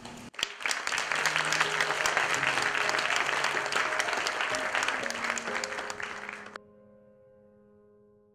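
Audience applauding, with music playing underneath. The applause cuts off suddenly about six and a half seconds in, leaving a few held music notes that fade out.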